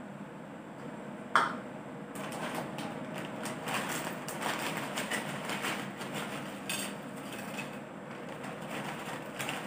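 A single sharp knock about a second and a half in, then tortilla chips poured from a plastic bag onto a ceramic plate: the bag crinkling and the chips clattering and scraping onto the plate in uneven bursts.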